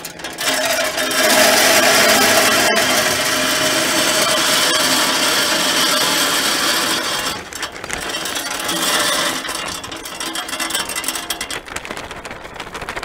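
Beech wood pellets poured from a bag into the metal hopper of a Moesta Sheriff pellet smoker, rattling steadily onto the metal as they pile up. The pour is heaviest for the first several seconds, then thins to an uneven trickle in pulses as the bag is shaken empty.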